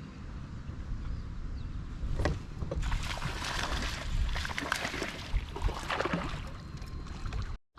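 Wind rumbling on the microphone aboard a kayak. From about two seconds in come crackling water noise and a few knocks, and the sound cuts off abruptly just before the end.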